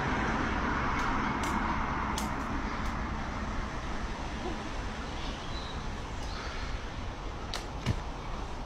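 Road traffic noise: a steady rush, loudest in the first couple of seconds and then easing off, with a few sharp clicks and a knock near the end.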